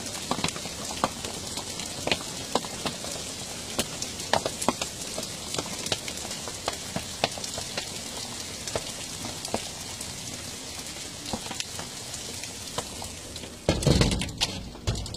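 Hail falling: a steady hiss of hail and rain, with many sharp ticks of hailstones striking. Near the end a louder low rumble lasts about a second.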